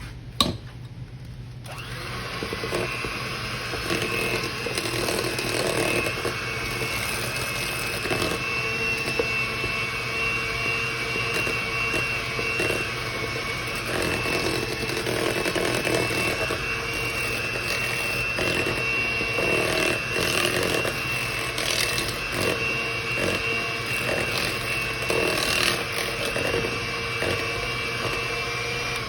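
Electric mixer running steadily with a constant motor whine, beating butter, sugar, eggs and vanilla together for brownie batter. A click comes just before it starts, and it stops near the end.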